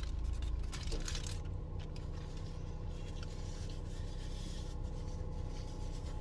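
Paper napkin rustling and rubbing as a mouth is wiped and the napkin crumpled, with a few soft clicks near the start, over a steady low hum.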